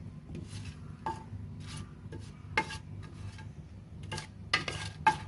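Wooden spatula scraping and knocking against the inside of a metal pressure cooker in short, irregular strokes while stirring whole spices in hot oil, over a steady low hum.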